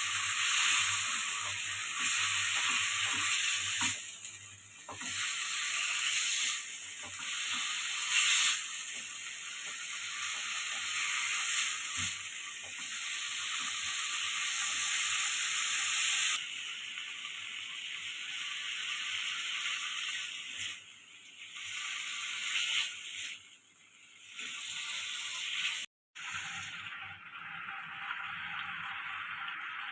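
Food sizzling in a hot frying pan, a steady hiss that swells and dips, with occasional light clicks and scrapes of a utensil stirring it. The sound cuts out briefly near the end, then the sizzling resumes.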